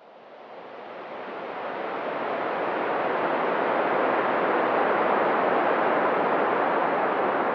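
A steady rushing noise with no tone or beat, fading in from silence over the first two to three seconds and then holding even.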